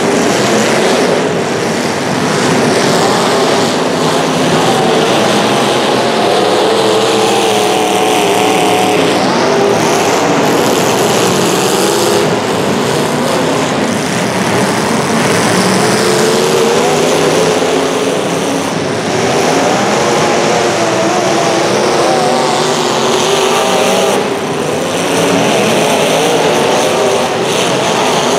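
Several racing engines running hard at once during a race heat, their pitches wavering as they rise and fall; vehicles sweep past about a third of the way in and again near the end.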